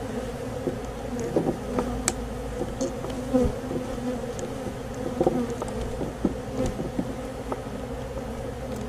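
A mass of honey bees buzzing in a steady hum around the opened comb, with a few light clicks and knocks scattered through it.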